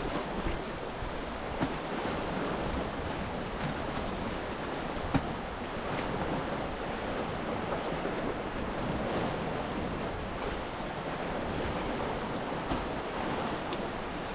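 Steady rush of waves and wind, with a few faint clicks; the sharpest click comes about five seconds in.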